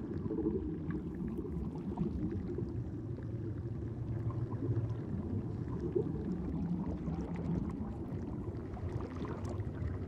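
Steady low rumble of underwater ambience, with scattered faint clicks.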